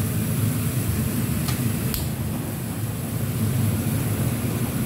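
Butane kitchen torch flame burning with a steady low rumble and hiss as it sears grilled squid. Two short clicks come about a second and a half and two seconds in.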